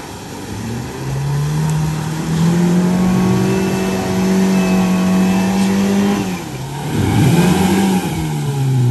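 Small 4x4's engine revving hard as it drives through a muddy bog, revs climbing over the first couple of seconds and held high, easing off about six seconds in, then rising again briefly before falling away near the end.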